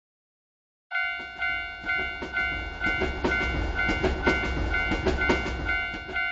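Japanese railroad crossing warning bell ringing "kan-kan" about twice a second, starting about a second in. Under it, a passing train rumbles and clatters over the rail joints.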